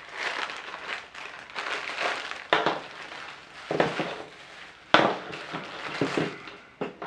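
Plastic packaging bags crinkling and rustling as they are handled and pulled open, in irregular bursts with a few sharper crackles.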